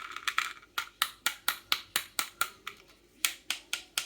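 Small toys clacking down a HABA wooden zig-zag slope toy: a rapid, even run of sharp wooden clicks, about four to five a second, with a brief break about three seconds in.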